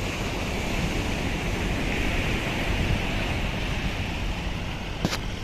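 Surf breaking on a beach, with wind buffeting the microphone: a steady rushing noise. There is a brief click near the end.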